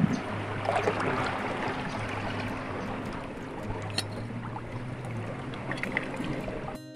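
Seawater sloshing and washing over rocks, with a few short clicks and scrapes of a serrated knife working against the rock to pry chitons loose. A low steady hum runs underneath, and the sound cuts off abruptly near the end.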